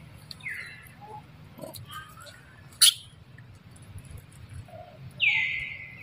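Newborn monkey giving high-pitched whining calls, each sliding sharply down and then holding a steady tone: a faint one just after the start and a loud one about five seconds in. A single sharp click comes near the middle.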